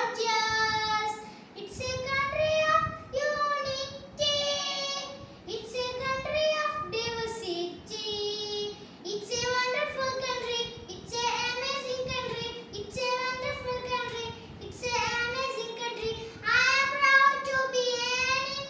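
A young girl singing solo without accompaniment, in sung phrases broken by short pauses for breath.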